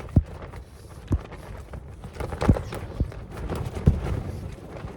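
Irregular dull knocks, about five, over a low rumble of wind buffeting the tent.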